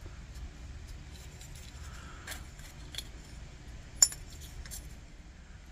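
A few light metallic clinks and taps from handling small lantern parts and hand tools, the sharpest one about four seconds in.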